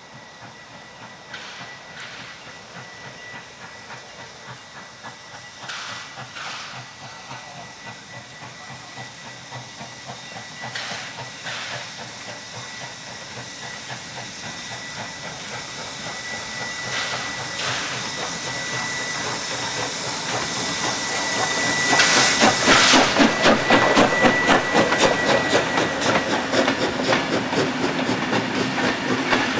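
NSW 36 class 4-6-0 steam locomotive 3642 working a passenger train as it approaches and passes: steam exhaust and hiss grow steadily louder, peaking about three quarters of the way through as the engine goes by. The carriages then roll past with a rapid rhythmic clatter of wheels over the rail joints.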